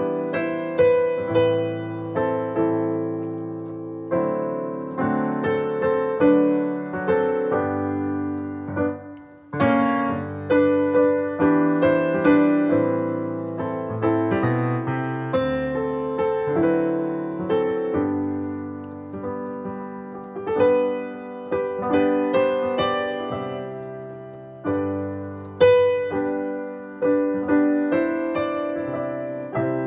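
Digital stage piano (Nord Stage 3) playing a hymn reharmonized with passing chords: sustained two-handed chords under a melody, a new chord struck about every second, with a short break about nine seconds in.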